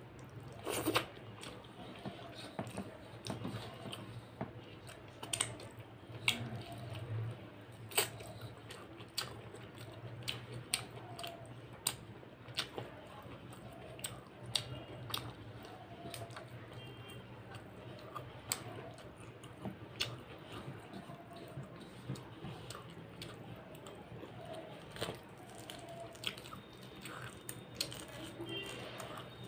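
Close-miked chewing and wet mouth smacks of someone eating rice and mutton curry: many small sharp clicks over a steady low hum.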